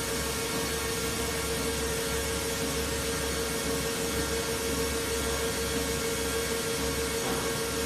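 REL-TEX seamless circular knitting machine running, a steady whir with an even hum.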